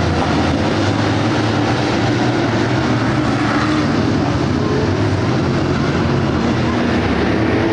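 Field of street stock race cars' engines running together on the dirt oval, a loud, steady drone with no break.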